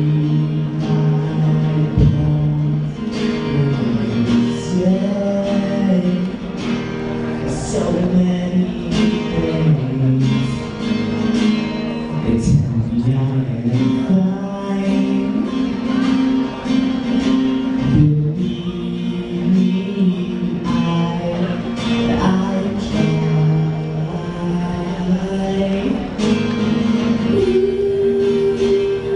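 A male voice singing to his own strummed acoustic guitar, solo, with no other instruments.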